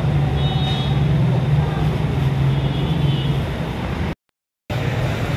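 Busy street traffic with a vehicle engine running close by as a steady hum, and voices in the background. The sound drops out briefly about four seconds in.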